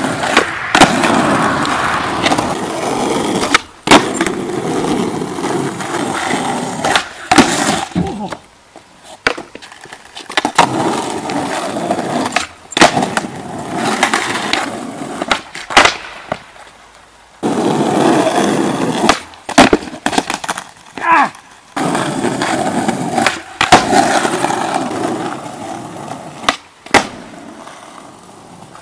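Skateboard wheels rolling on rough asphalt in several runs of steady rumble, broken by sharp cracks and clacks of the board's tail popping, the board landing, and the board clattering onto the ground.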